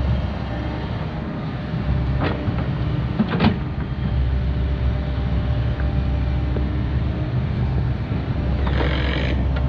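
Takeuchi TB2150 excavator's diesel engine running steadily under load while it digs. Two short knocks come about two and three and a half seconds in, and a brief hiss near the end.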